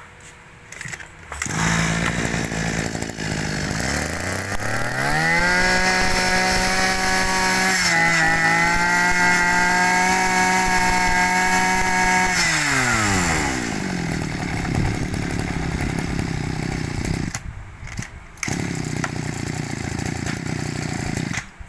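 Small 26cc two-stroke Nikkari brush cutter engine starting and idling. It then revs up smoothly to a high, steady speed for about seven seconds and drops back to idle.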